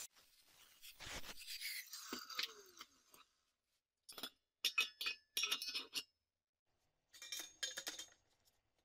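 Steel angle pieces clinking and scraping against a steel frame as they are set in place: several short clusters of sharp metal clinks.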